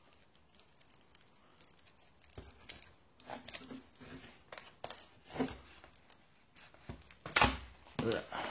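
Product packaging being pulled and handled while someone tries to open it by hand: scattered crinkling and tearing rustles after a quiet start, loudest near the end.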